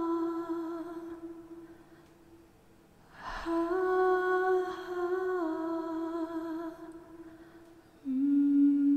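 A woman humming slow, long-held notes that step down in pitch, in phrases a few seconds long. The first phrase fades out, a second begins just past the middle, and a new, lower note starts near the end.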